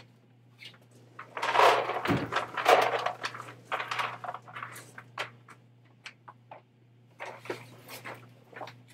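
Water softener salt pellets poured from a plastic bag into a plastic brine tank: a loud rattling pour for about two seconds starting over a second in, then scattered clicks, clatters and bag rustles. A steady low hum sits underneath.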